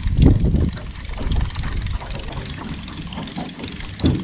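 Wind buffeting the microphone in irregular gusts, a low rumble that is loudest right at the start and again just before the end.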